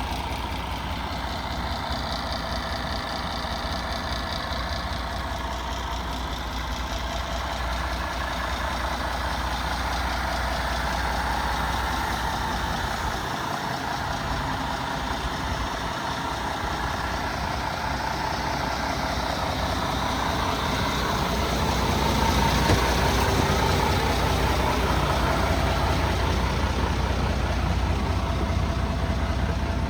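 MAN TGX 18.470 truck's straight-six diesel engine running steadily, a little louder in the second half.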